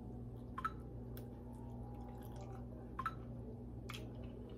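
A person quietly chewing a mouthful of dumpling, with a few soft mouth clicks, over a steady low hum.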